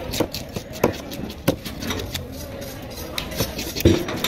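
Heavy knife chopping through tuna onto a wooden cutting board: several sharp knocks at irregular intervals, the loudest near the end, over background voices.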